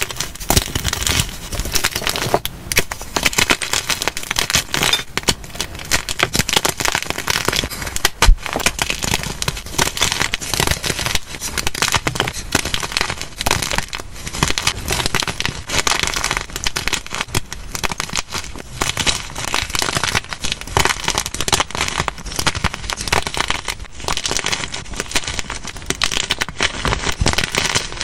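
Blocks of magnesium carbonate gym chalk squeezed and crushed by hand, crunching and crackling without a break as they crumble into chunks and powder, with the paper wrapping crinkling. One sharper crack stands out about eight seconds in.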